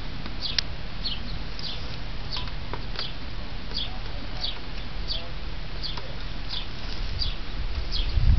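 A bird calling over and over, each call a short high chirp falling in pitch, a little under two a second, over a low steady rumble.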